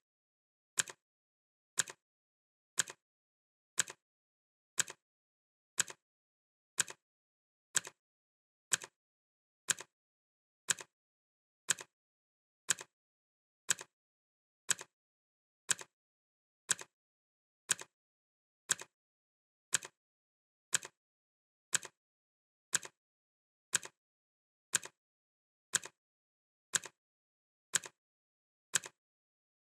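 Clock ticking, one sharp tick every second at a steady pace, each tick a quick double click.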